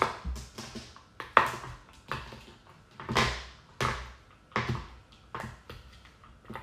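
Flower-shaped silicone pop-it fidget toy being pressed bubble by bubble with a fingertip: a string of sharp pops, about two a second and unevenly spaced.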